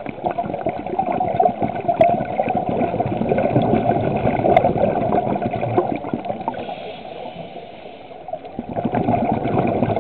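Scuba regulator exhaust bubbling as a diver breathes out underwater: a gurgling rush of bubbles for about six seconds, a quieter lull while the diver breathes in, then the next exhalation starting near the end.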